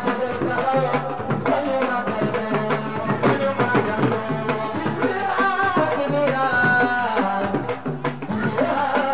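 Live music: a singer on a microphone over hand drums, with a repeating low bass line.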